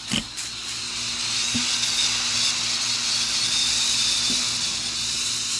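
Mammoth Smoke smoke bomb hissing steadily as it burns and pours out smoke, growing louder over the first couple of seconds. A sharp click comes just after the start and a couple of faint knocks follow.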